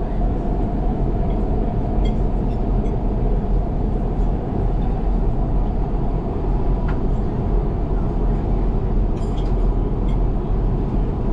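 Airbus A350-1000 cabin noise in cruise: the steady rush of airflow and engine drone, with a deep low rumble underneath.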